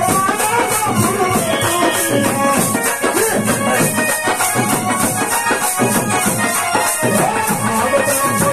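Village bhajan music: a melody line, likely sung, over a steady jingling hand-percussion beat of about three strokes a second.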